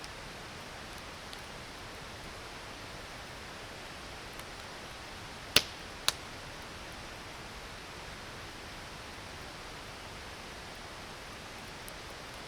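Steady rush of creek water under a burning campfire; about halfway through, the burning wood pops sharply twice, half a second apart, with a few faint crackles elsewhere.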